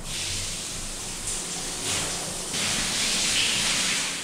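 Water spraying from a handheld shower head, a steady hiss that shifts in strength a couple of times and is loudest near the end.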